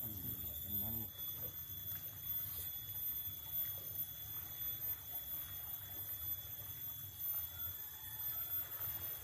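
Riverside ambience: a steady low rumble of wind and flowing river water, with a brief murmur of a voice about a second in.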